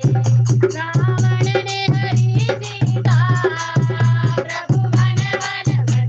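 Hindu devotional bhajan music with a quick, steady percussion beat over a pulsing bass and a melody line that bends in pitch.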